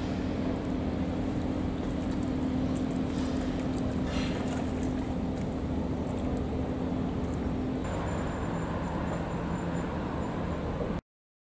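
A steady low engine hum under a haze of outdoor noise. The hum's pitch drops about eight seconds in, and everything cuts off abruptly near the end.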